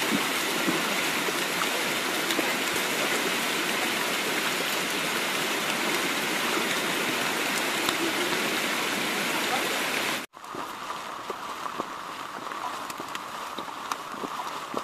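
Steady rushing water in the rain. About ten seconds in it cuts off abruptly to a quieter hiss with scattered light ticks.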